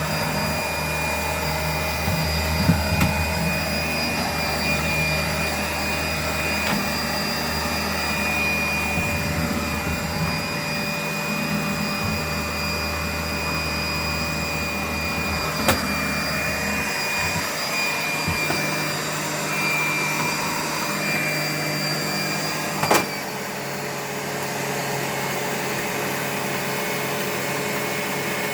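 Vacuum cleaner running steadily with a high motor whine. Its low rumble swells and drops as the nozzle is moved about, and there are two sharp knocks in the second half.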